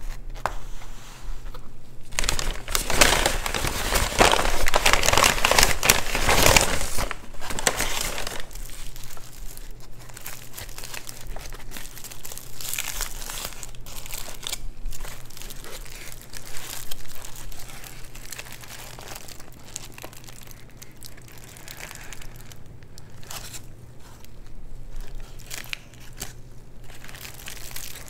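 Food packaging crinkling and rustling as it is handled and opened. It is loudest and densest for several seconds near the start, then goes on as lighter, scattered crackling with a few louder crinkles.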